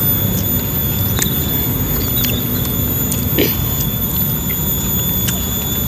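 Close-up mouth sounds of people eating with their hands: scattered wet chewing smacks and small clicks over a steady background hiss and a faint high steady whine.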